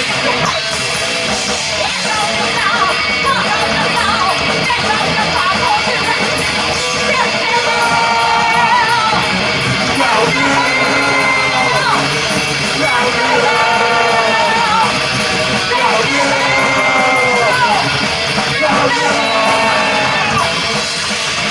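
Live heavy metal band playing loud, with distorted electric guitar, bass and drums and a singer's voice over them.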